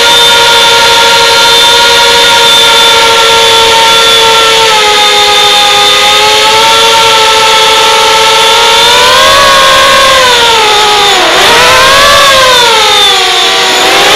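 FPV quadcopter's motors and propellers whining, steady at first, then rising and falling in pitch with the throttle, with a sharp dip about eleven seconds in as the throttle is chopped and pulled again.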